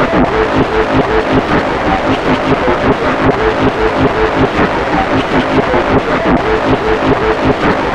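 Loud music with a fast pulsing beat and short repeated notes.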